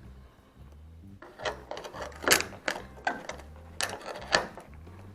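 Screwdriver prying at a door lock cylinder's spring-steel retaining clip inside a classic Ford door: a run of irregular metallic clicks and scrapes, starting about a second in, with louder snaps a little past two seconds and near four seconds.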